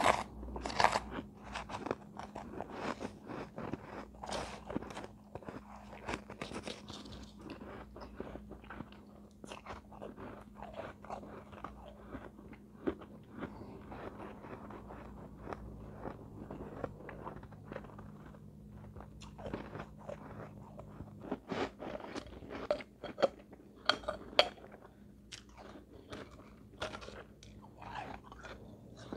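Shaved ice being bitten and chewed close to the microphone: a long run of crisp, irregular crunches, loudest about 22 to 25 seconds in.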